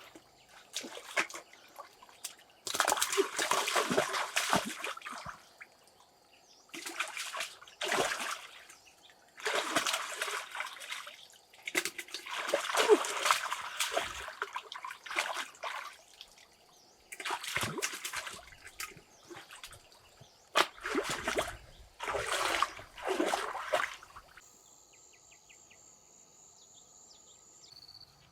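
Water splashing and sloshing in repeated bursts, each a second or two long, about nine times. Near the end the splashing stops and steady insect chirring is left.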